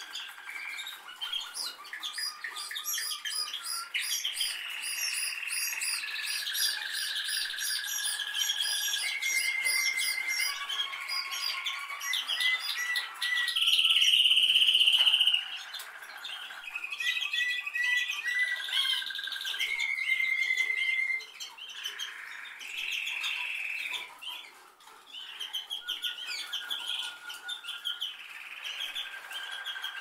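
Canary singing a long, varied song of rapid trills, chirps and held whistled notes. The loudest part is a steady high whistle held for about two seconds midway.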